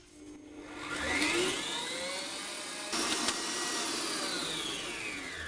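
Electric stand mixer's motor whining up to speed about a second in, its balloon whisk beating egg whites in a stainless steel bowl to a froth; the pitch falls away near the end as the mixer slows.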